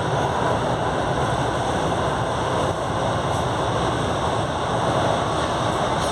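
Interior of a CPTM Série 8000 electric train car under way: a steady running noise of the traction motors growling over wheels on the rails.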